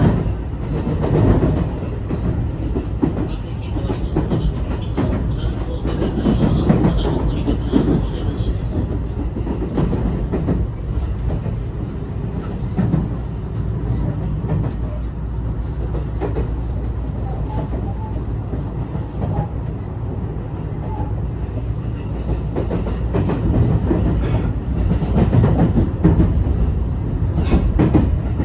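Running noise inside a JR West 223 series 2000-subseries motor car, MoHa 223-2145, fitted with Hitachi IGBT inverter drive. The wheels rumble steadily on the rails, with repeated clicks over rail joints as the train slows into a station.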